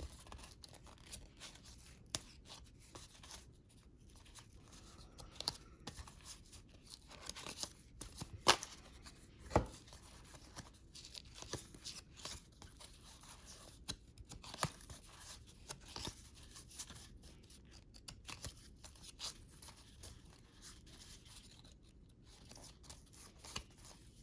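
Trading cards being flipped through and slid off a stack by hand: soft scraping and flicking of card against card, with a couple of sharper clicks about eight and nine and a half seconds in.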